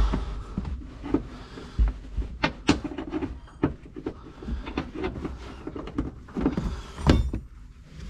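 Irregular metallic clicks and knocks of a ring spanner working loose the bolts of a tractor cab's floor plate, with a few sharper clanks among them.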